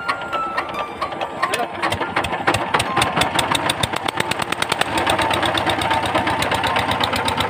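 VST Shakti power tiller's single-cylinder diesel engine starting up: a few separate firing knocks, then from about two seconds in a fast, even knocking beat as it settles into steady running.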